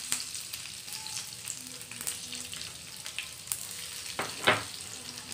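Hot oil sizzling in a frying pan as mustard seeds and cumin crackle and crushed garlic cloves are added: a tadka (tempering) in progress. A steady sizzle with scattered small pops, and one louder click about four and a half seconds in.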